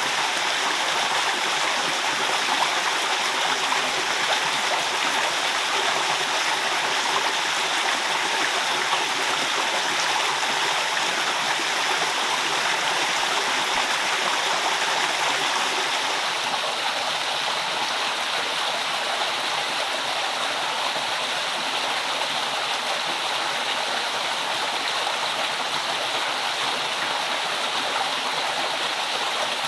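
A forest stream running, an even, continuous rush of flowing water.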